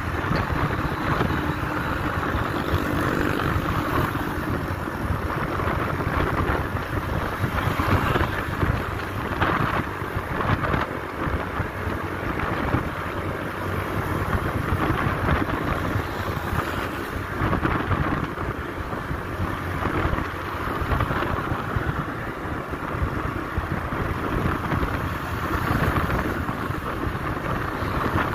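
Riding a motor scooter along a road: steady wind rushing over the microphone mixed with engine and road noise, rising and falling slightly with no distinct events.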